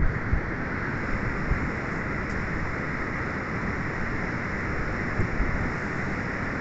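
Steady rush of surf from a rough sea, with light wind buffeting on the microphone.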